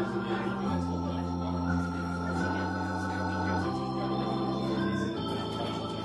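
Hammond-Suzuki XK-3 organ played through a Leslie 3300 rotating speaker: a slow run of held chords, moving to a new chord four times.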